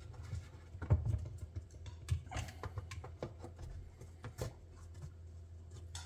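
A handful of light clicks and knocks, about a second apart, of plastic dishwasher filter parts being handled and fitted back into the bottom of a stainless steel tub.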